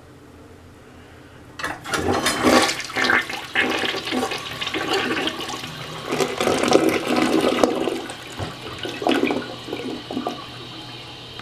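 Toilet flushing: a sudden rush of gurgling water starts about a second and a half in. It surges for several seconds, then settles into a quieter steady hiss near the end.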